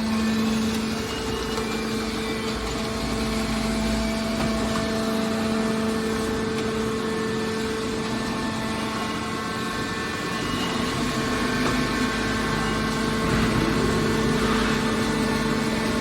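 Hydraulic metal recycling baler's power unit running with a steady hum.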